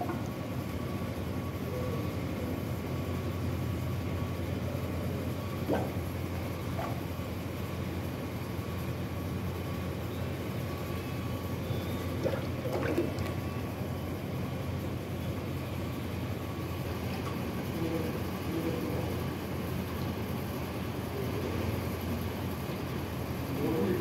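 Steady hum of factory machinery with a faint constant whine above it, broken by a few light knocks.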